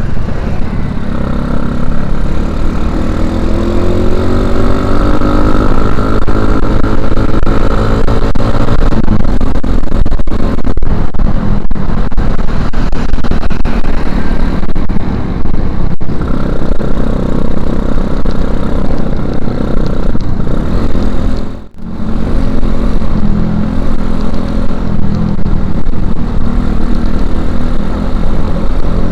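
Suzuki Shogun Axelo R's 125 cc single-cylinder four-stroke engine running on the road through a stock Suzuki Satria FU 150 silencer, rising in pitch as it accelerates over the first several seconds, then running steadily. About two-thirds of the way through, the sound drops out sharply for a moment and then picks up again.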